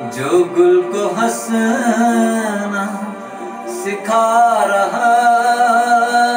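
A man singing a naat, an Urdu devotional poem, in ornamented, winding phrases, settling about four seconds in onto one long held note.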